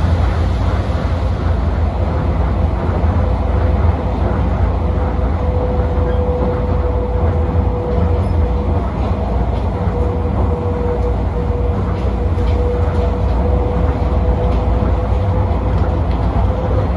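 Rubber-tyred Tokyo Monorail car running at speed, heard from inside the cabin: a steady deep rumble with a steady high whine held through it, stronger in the second half.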